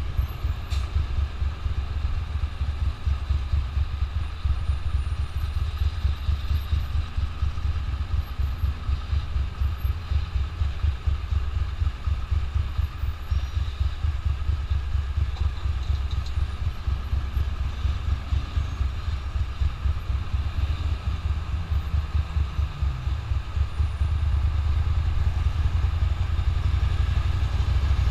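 Ducati motorcycle engine running at low speed in slow traffic, a steady low throb that grows louder near the end.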